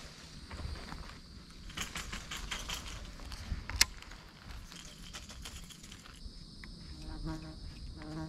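Clicking and rattling of a baitcasting reel and rod being worked while retrieving a topwater lure, with one sharp click just under four seconds in. A steady high insect buzz sits underneath, and two short low hums come near the end.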